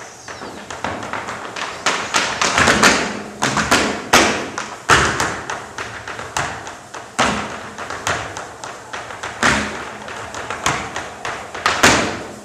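Dancers stamping and tapping their feet on a stage floor: quick, irregular clusters of sharp strikes and thuds, with heavier single stamps every second or two.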